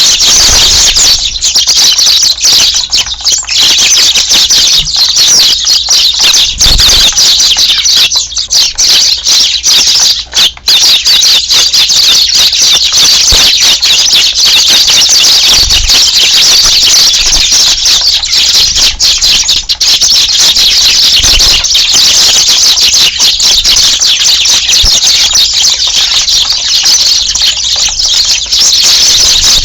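A large flock of Eurasian tree sparrows chirping all at once in a loud, continuous chorus.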